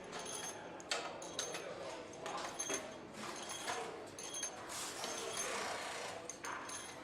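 Engine-assembly workbench noises: a string of short metallic clicks and clinks from tools and parts, with a brief rush of noise about five seconds in.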